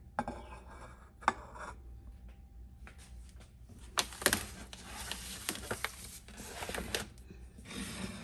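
Disposable aluminium foil baking pan being handled and moved across the stovetop, its thin metal crinkling and scraping with sharp clicks; the densest crinkling runs from about four to seven seconds in.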